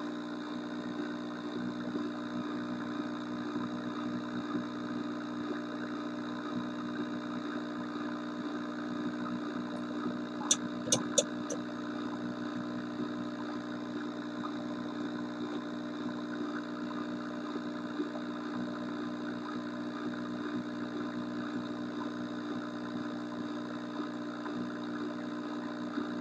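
1968 Ford Mustang Philco AM/FM car radio running through its speaker with no station tuned: a steady hum with static hiss. A quick run of three or four sharp clicks comes about ten to eleven seconds in.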